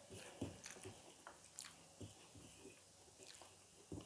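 Faint close-up eating sounds: soft chewing and wet mouth clicks, with scattered small squelches as fingers mix rice and curry on a steel plate.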